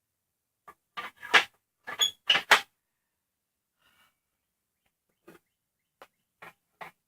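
Sharp clicks and knocks from a Ryobi miter saw being handled: a quick cluster of about eight in the first few seconds, then four fainter taps near the end.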